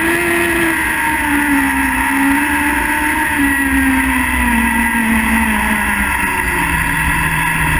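Speedway sidecar outfit's engine running hard, heard from on board over a constant rush of noise. Its pitch wavers, then falls steadily through the second half as the revs come down.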